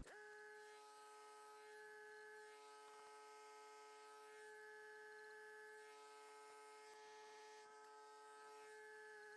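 Near silence with a faint, steady electrical hum of one pitch plus overtones, which cuts in and out abruptly.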